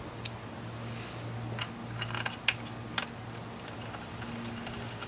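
Scattered light clicks and taps of a hand tool and small parts against a ZF 5HP19 transmission valve body as connectors and fixings are fitted, the loudest about two and a half seconds in, over a steady low hum.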